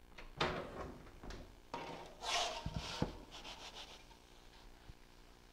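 Oven door pulled open, then a wooden pizza peel scraping across the pizza stone as it is pushed under a baked pizza, with a sharp knock about three seconds in.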